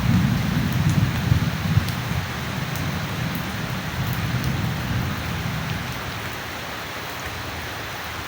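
Steady rain falling, with the tail of a low thunder rumble that fades away over the first few seconds, leaving only the hiss of the rain.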